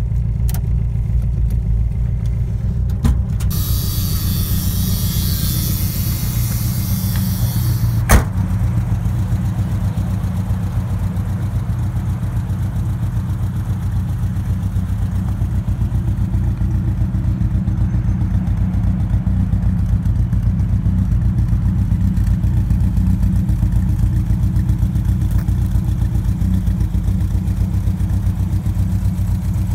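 A 1980 Ford Fiesta's warm engine idling steadily at about 1,000 rpm, with a short hiss in the first few seconds and a sharp knock about eight seconds in.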